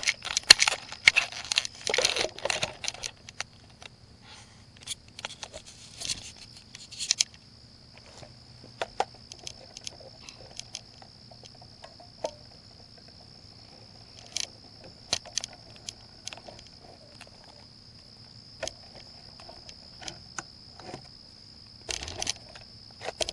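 Scattered clicks, knocks and small rattles of things being handled, loudest and densest in the first few seconds, over a steady high-pitched hum.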